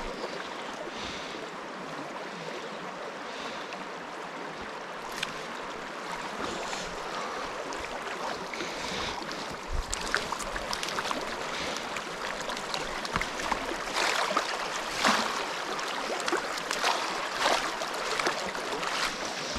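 Steady rush of a small stream's flowing water. From about halfway on, short splashes and knocks break through as a hooked trout thrashes at the surface and is brought to the landing net.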